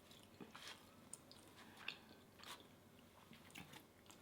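Faint chewing of soft takoyaki, with a few small wet mouth clicks and smacks scattered through.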